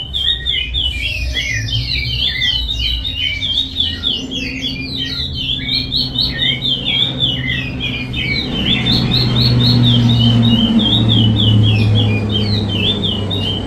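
Curió (chestnut-bellied seed finch) singing its Paracambi-type song: a fast, unbroken run of short, sweeping notes. A low hum in the background grows louder about two-thirds of the way through.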